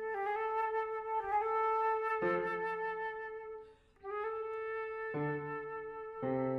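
Flute and piano playing contemporary chamber music. The flute holds and re-sounds the same middle-range note, stopping briefly for a breath a little past halfway. Piano chords are struck beneath it three times, a little before halfway and twice near the end.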